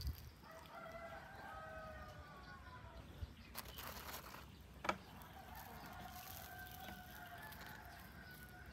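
Rooster crowing twice, each a long call that falls slightly in pitch, with a few sharp knocks in between.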